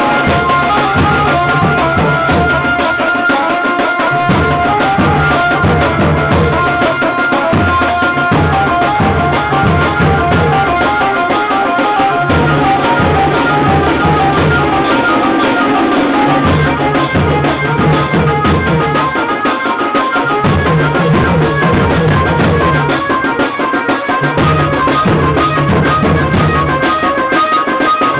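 Indian banjo band playing live: an amplified banjo melody through horn loudspeakers over big bass drums played with sticks. The drums beat in stretches of a few seconds with short breaks, while the melody carries on throughout.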